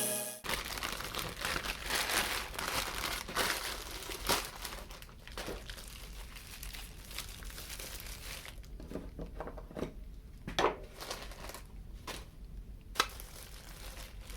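Crinkling and rustling handling noise with irregular sharp clicks, over a faint low steady hum.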